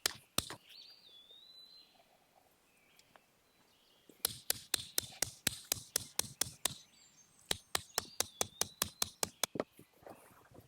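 Sharp taps in quick runs of about five a second: a few near the start, then two long runs in the second half. A bird gives a thin, wavering whistle about a second in and again near the end.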